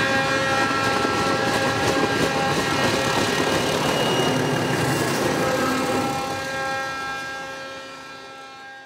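ALCO DL 537 diesel locomotives running under power: a loud diesel engine sound with a steady whine of several tones on top. It fades away over the last three seconds.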